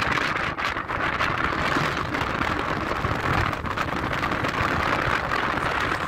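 Strong wind blowing across the microphone: a steady rushing hiss with uneven low buffeting.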